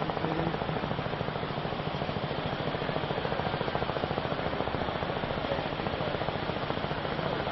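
Steady machine noise with a fast, even pulsing, holding the same level throughout.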